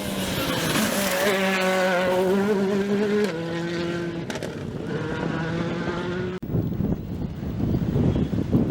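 Rally car engine at high revs under load, holding a steady note that drops with a gear change about three seconds in and then climbs again. About six seconds in it switches abruptly to a rougher, noisier engine sound.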